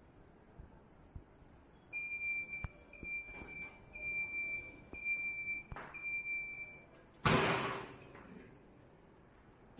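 A heat press's control panel beeps five times, about once a second, as its timer counts down the last seconds of the pressing time. Just after the last beep comes a loud, short burst of noise as the press opens.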